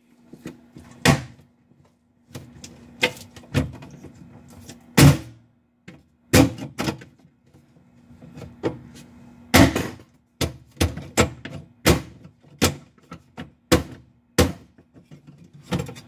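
Plastic light and control-panel housing in an Amana refrigerator's ceiling being pushed and knocked into place by hand: a string of sharp plastic clicks and knocks as its clips are pressed, with one not yet snapping in.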